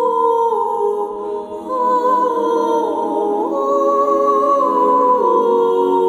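Background music of slow, sustained notes that shift in steps from one pitch to the next.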